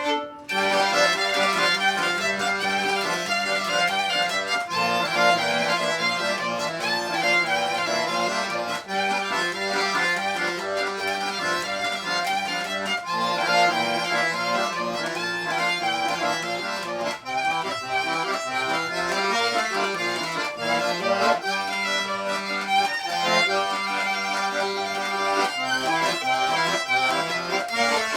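Acoustic folk music led by an accordion playing a steady, rhythmic instrumental passage, without singing.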